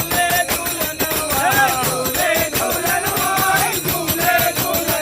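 Devotional bhajan music: a singing voice over jingling, rattling hand percussion keeping a steady beat.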